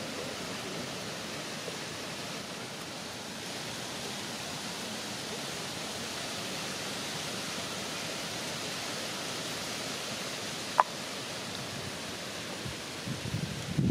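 Steady hiss of outdoor background noise, with one sharp click about eleven seconds in and a few low bumps near the end.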